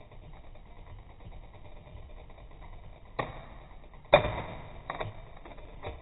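Bicycle chain running over the front chainrings as the crank is turned by hand, a steady ticking whir. Sharp metallic clacks come a little after three seconds in and, loudest, after four seconds, as the front derailleur shifts the chain between the small and large chainrings.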